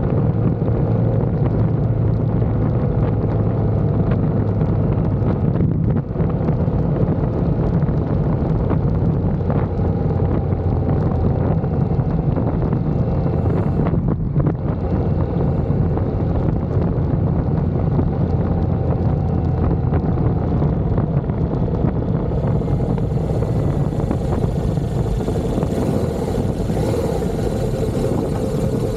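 Motorcycle running steadily while under way, its engine hum mixed with rushing wind noise on the microphone.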